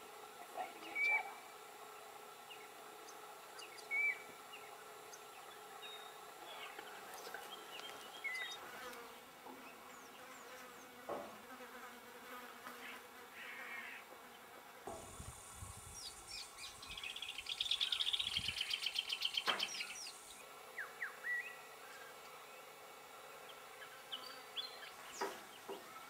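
Wild birds calling in open bush, with scattered short chirps and whistles throughout. About two-thirds of the way in comes a rapid buzzy trill of about two seconds, which is the loudest sound, with a brief low rumble just before and under it.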